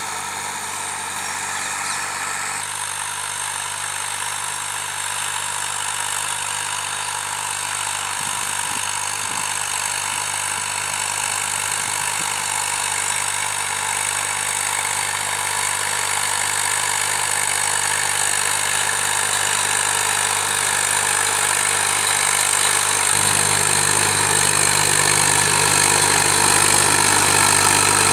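Sonalika DI 740 tractor's diesel engine running steadily while pulling a cultivator through the soil. It grows gradually louder as the tractor comes closer, with a stronger low note in the last few seconds.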